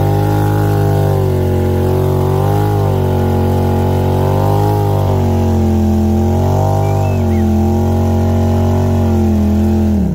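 Off-road vehicle's engine running steadily, its revs rising and falling slightly, then dropping sharply near the end.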